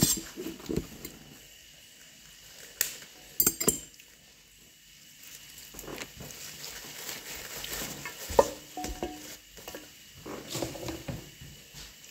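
Kitchen dishes and utensils knocking and clinking now and then, with a couple of ringing metallic clinks about three and a half seconds in and a sharper knock a little past eight seconds.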